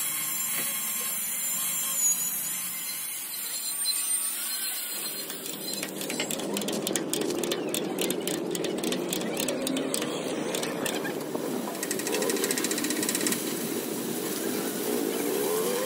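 Metalworking tool noise: rapid tapping strokes from about six seconds in, then a fast mechanical rattle near the end.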